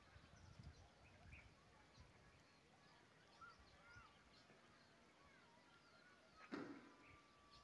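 Near silence: faint outdoor ambience with a few soft bird chirps, and one brief thump about six and a half seconds in.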